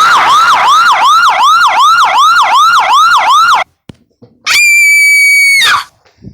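Sound-effect alarm siren whooping in quick repeated sweeps, about three a second, that cuts off suddenly. After a short gap comes a single steady electronic beep about a second long.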